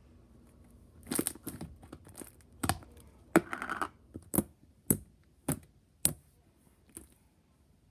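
White glue slime being poked and stretched by hand, giving a series of sharp pops and clicks about every half second, with a longer crackling stretch about three and a half seconds in.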